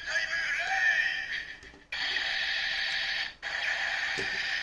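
Kamen Rider Ridewatch toy playing its electronic sound effects and music through a tinny small speaker; the sound cuts off sharply twice, about two seconds in and again a second and a half later, and starts straight up again each time.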